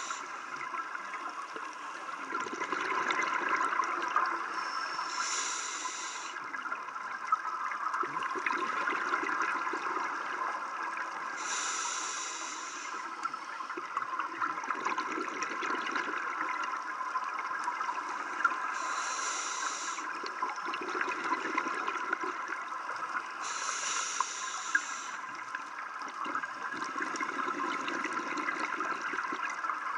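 Scuba diver breathing underwater through a regulator: a hiss about every six seconds, alternating with a lower burble of exhaled bubbles. A steady crackling underwater hiss runs beneath it.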